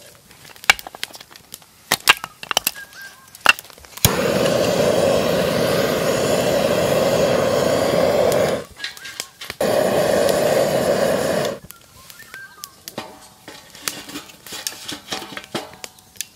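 Small split firewood pieces knocking and clacking as they are dropped and set into a stainless-steel fire pit. Between them comes a loud steady rushing hiss, once for about four seconds and then for about two.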